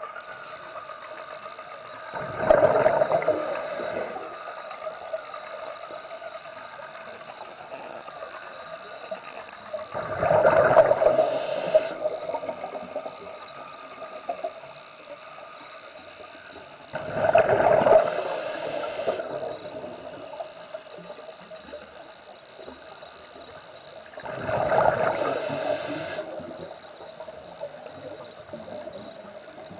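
Underwater scuba breathing through a regulator: four breaths about seven seconds apart, each a burst of bubbling exhaust ending in a short hiss, with a faint steady hum between them.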